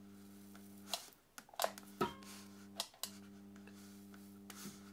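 Proxxon Thermocut hot-wire cutter humming low and steady as its wire heats, while short cuts are made into Styrodur foam. The hum cuts out briefly twice, with a few sharp clicks around the breaks.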